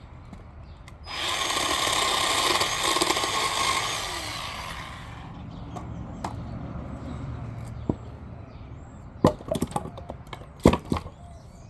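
Bauer 20-volt cordless 10-inch electric chainsaw starting about a second in and cutting through a log for about three seconds, then winding down. Several sharp knocks follow near the end.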